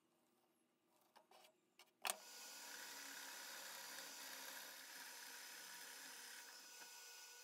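A few faint clicks, then about two seconds in a sharp click as an electric power tool starts, running steadily with a whirring hiss.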